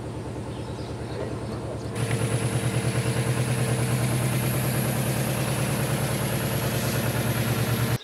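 An engine running steadily with an even, rapid pulse, louder from about two seconds in, and cut off abruptly at the end.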